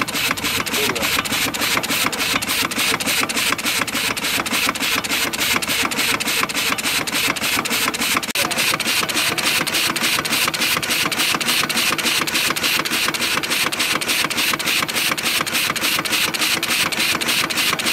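1890s Armitage Herschell portable steam engine running steadily, its piston and crosshead working with a rapid, even chuff-and-clatter of several strokes a second.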